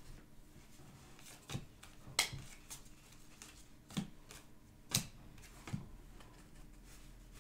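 Football trading cards being handled and sorted by hand: a few short, sharp clicks and slaps, about six, spaced irregularly as cards are flicked through and set down on a desk.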